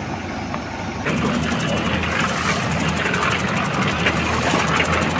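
Diesel engines of heavy construction machines running steadily: first a JCB 3DX backhoe loader, then, after a cut about a second in, an Escort Hydra crane holding a concrete culvert pipe, a little louder.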